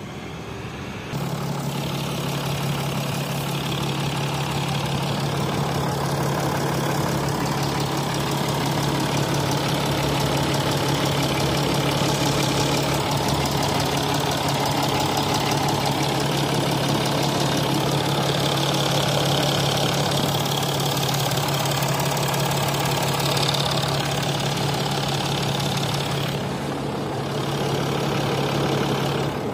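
Mercedes-Benz GL 3.0 CDI V6 diesel engine idling steadily, louder from about a second in.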